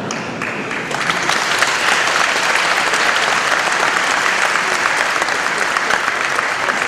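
Congregation applauding, the clapping swelling about a second in and then holding steady.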